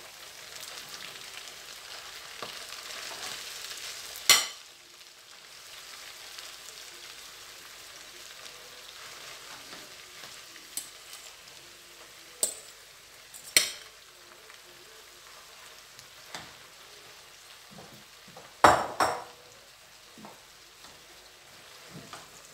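Green broad beans and barley grits sizzling in olive oil in a frying pan as they are tipped in and stirred. The sizzle is stronger for the first few seconds, then quieter. A spoon knocks sharply against the bowl and pan a few times, twice in quick succession near the end.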